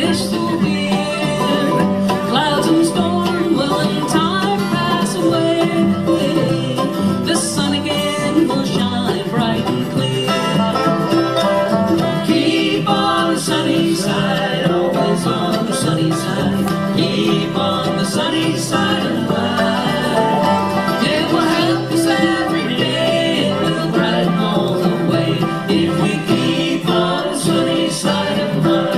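A live bluegrass band playing steadily: banjo, mandolin, two acoustic guitars and upright bass.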